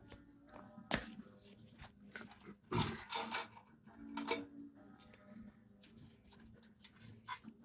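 Scattered clicks, rattles and short rustles of a car wiring harness being handled and worked free of its clips, the loudest bursts about three seconds and four seconds in, over a faint steady hum.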